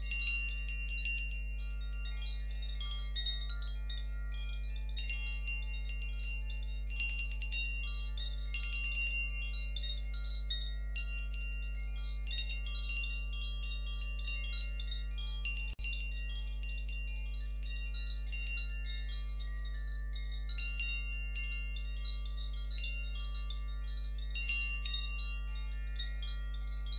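Meditative background music: wind chimes tinkling in irregular clusters of strikes over a steady, unbroken low drone.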